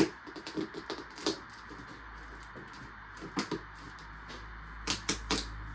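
Cardboard shipping box being handled: scattered sharp knocks and scrapes, loudest right at the start and clustering near the end.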